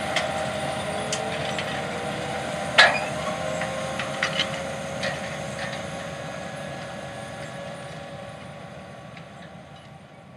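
A 520-horsepower John Deere 9520RX narrow-track tractor pulling a 36-row John Deere DB90 corn planter, its engine running steadily and fading as it moves away. Scattered knocks and clatter ride over it, the loudest about three seconds in.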